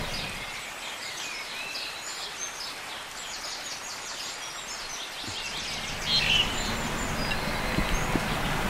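Birds chirping and calling in the open air over a steady outdoor background hiss. The background gets louder about six seconds in, with some rustling.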